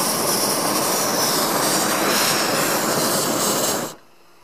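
Hot-air balloon's propane burner firing, loud and steady, then cutting off suddenly near the end.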